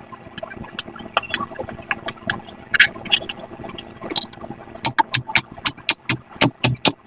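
Silicone pop-it fidget toy bubbles being pressed, a run of small pops. They are scattered at first, then come quickly and evenly, about four or five a second, from about five seconds in.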